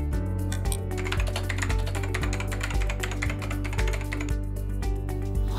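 Computer keyboard typing, a fast, continuous run of key clicks, over steady background music.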